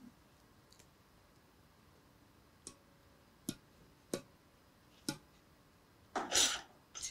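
Shuttlecock being bounced on the strings of a badminton racket: four sharp, light taps, less than a second apart. A short breathy noise follows near the end.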